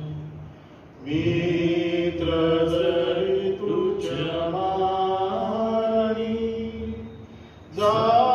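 A voice singing a slow Marathi hymn in long, held, chant-like phrases. There are short breaks between phrases about a second in and near the end.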